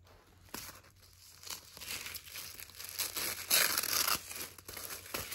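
Paper packaging being torn open and crinkled by hand: irregular rustling and small crackles, with a louder stretch of tearing about three and a half seconds in.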